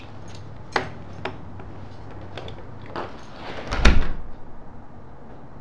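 A few light clicks and knocks, then a door shutting with a heavy thud about four seconds in.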